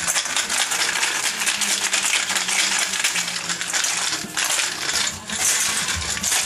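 Ice cubes rattling hard and continuously inside a cocktail shaker with a metal cap as a Manhattan is shaken to chill it.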